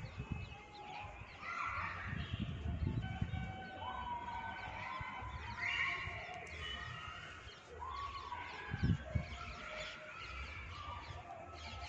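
A cotton towel rubbing against wet hair and the ear close to the microphone, in a few short rustling surges, with short high tones in the background.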